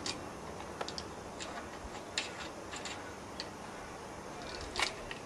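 A koala's claws scratching and clicking on tree bark and a metal fence as it climbs and reaches across: irregular short, sharp scratches over a steady hiss, the loudest a little before the end.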